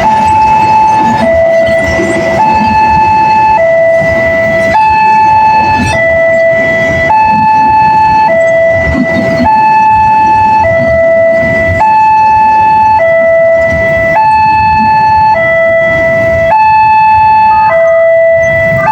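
Railway level-crossing warning siren sounding a steady two-tone hi-lo alternation, each tone held a little over a second, over a low rumble.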